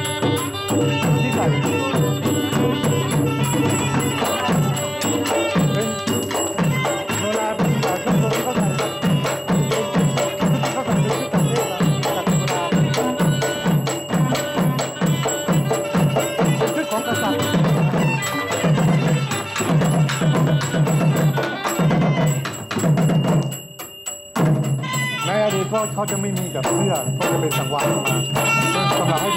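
A southern Thai Nora ensemble playing: a pi oboe holds a reedy melody over fast, even strokes on the thap goblet drum and a barrel drum. The music breaks off briefly about four-fifths of the way through, then starts again.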